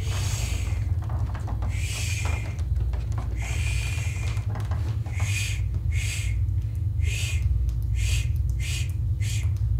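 Barn owl calls: a series of about nine harsh, hissing screeches. The first few are drawn out, and from about halfway they come shorter and quicker. A steady low hum runs underneath.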